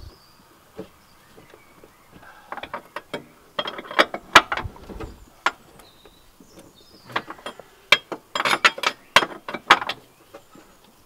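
A 22 mm steel spanner tightening the nylon-insert lock nut on the ball joint of a car's lower control arm: bursts of metal clicks and clinks as the spanner is worked and refitted on the nut, in several groups with short pauses between them.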